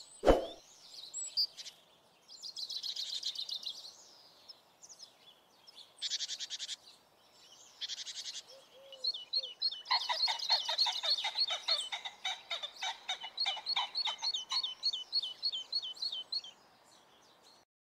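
Songbirds singing in short high trilled phrases, then a denser run of quick repeated notes from about ten seconds in that stops abruptly near the end. A brief low thump sounds just at the start.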